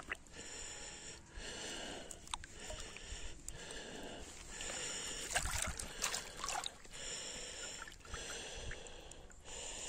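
Water sloshing and splashing as a carp is released from a landing net into shallow pond water, with the loudest splashes a little past the middle.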